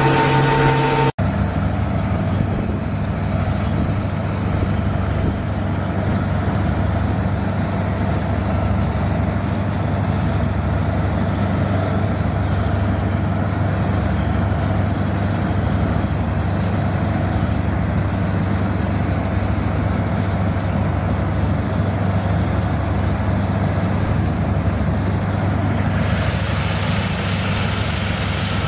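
Diesel engine of a CLAAS tracked combine harvester running steadily while harvesting, a constant low drone that turns harsher near the end as the machine comes close. In the first second a different machine's steady whine cuts off abruptly.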